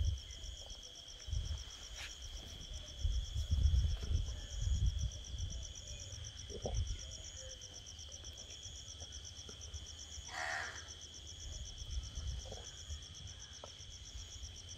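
Insects trilling steadily in the background: a constant high buzz with an even, pulsing chirp above it. Low thuds and rumbles come and go during the first five seconds, and there is a short softer sound about ten seconds in.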